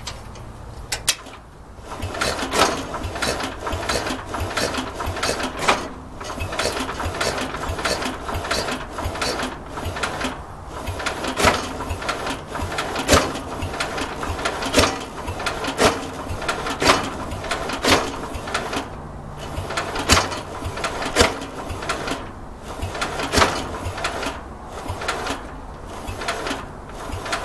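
Bolens 1050 garden tractor's engine being cranked by its starter on a weak, jumper-boosted battery without starting: a click about a second in, then steady rhythmic churning with sharp knocks at irregular intervals as it tries to fire. The owner takes the kicking back on these firing attempts for ignition timing that is off.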